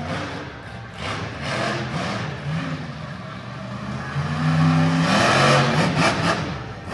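Monster truck engine revving hard, its pitch rising and falling with the throttle, loudest about five seconds in as the truck climbs a dirt mound.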